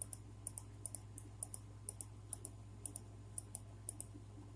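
Faint clicking at a computer, about three or four clicks a second, many in quick pairs, over a steady low electrical hum.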